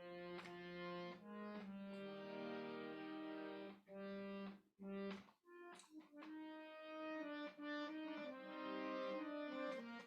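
Harmonium played with held notes and chords, pausing briefly about four seconds in.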